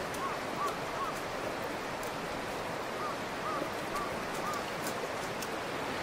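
Rushing river water, a steady even noise, with a few faint short chirps over it.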